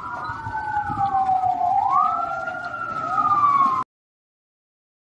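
Several emergency vehicle sirens wailing at once, their pitches rising and falling out of step with each other. The sound cuts off abruptly about four seconds in.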